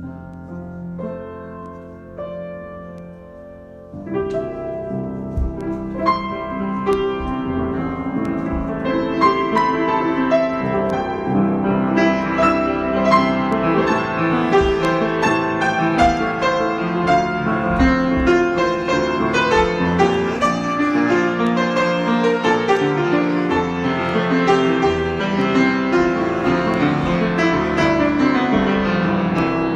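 Solo piano improvisation: a few soft, sparse notes, then about four seconds in the playing grows louder and busier, with dense chords and running notes.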